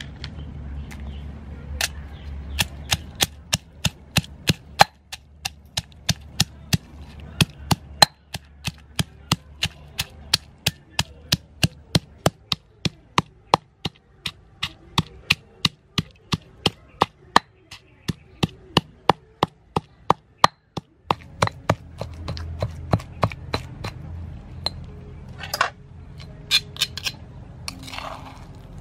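Pestle pounding raw crab in a stone mortar, a steady run of sharp thuds about two a second. Near the end the pounding stops and a spoon scrapes and clinks against the stone bowl.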